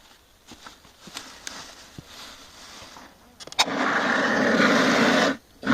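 Faint handling clicks, then, about three and a half seconds in, a sharp click and a loud steady hiss from a dry-chemical fire extinguisher discharging. The hiss cuts off abruptly after about a second and a half and starts again at the very end.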